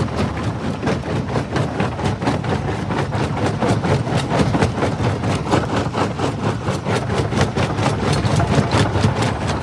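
Jaw rock crusher running under load: a steady low machine drone with dense, irregular cracking and crunching of stone being broken between its jaws.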